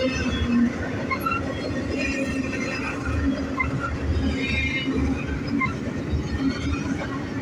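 Double-stack intermodal freight cars rolling past, a steady rumble of steel wheels on rail with scattered short wheel squeals.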